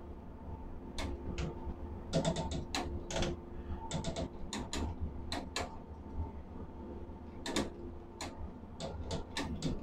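Steady electrical hum and low rumble of steel-plant machinery, with irregular sharp clicks scattered throughout, some coming in quick clusters.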